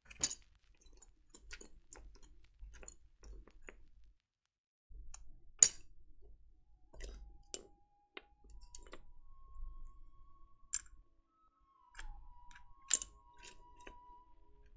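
Dye-sub keycaps clicking and clinking as they are handled and pressed onto a keyboard's switches, with three sharper clacks among the lighter clicks. Faint held tones come in from about halfway.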